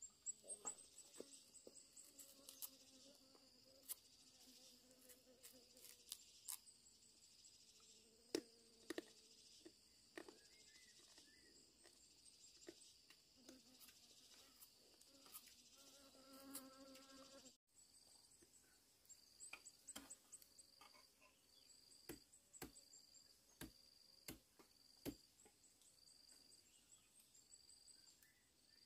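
Faint steady chirping of insects, turning into a regular pulsing about once a second after a cut two-thirds of the way in, with scattered sharp clicks and knocks throughout.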